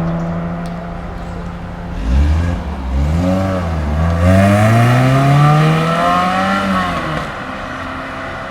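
Car engines: one running steadily at first, then a deep, loud engine blips its revs once and climbs in a long rising run as the car accelerates away, easing off about seven seconds in.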